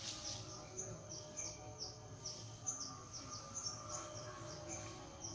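Small birds chirping in the trees: a quick run of short, high chirps that each slide downward, about three a second.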